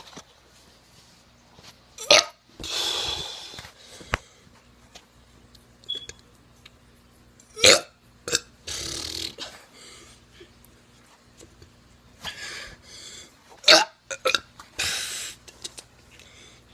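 A teenager forcing out burps, three of them about six seconds apart, each a short sharp sound followed by about a second of breathy noise.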